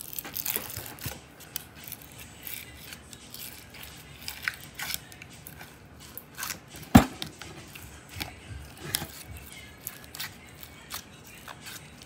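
Clear plastic slime tub being handled and its lid worked closed: plastic scraping, rubbing and clicking, with one sharp knock about seven seconds in.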